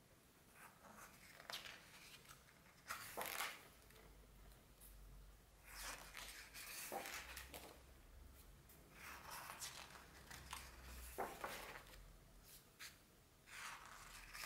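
Pages of a large hardcover art book being turned by hand, several times: each turn a short, soft paper swish and rustle, with quiet between.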